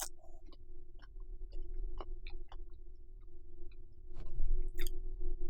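Close-miked chewing: scattered soft, wet mouth clicks and smacks, growing louder and fuller from about four seconds in, over a steady low hum.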